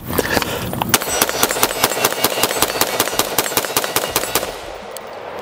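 Daniel Defense Mark 18 short-barreled 5.56 AR-15 with a 10.3-inch barrel firing a rapid, evenly spaced string of shots, about six a second, for about three and a half seconds as the magazine is emptied.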